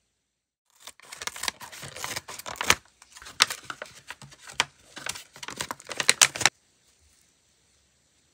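A pink foam nail sponge being torn by hand into a small piece: three bouts of ripping and crackling that stop suddenly after about six and a half seconds.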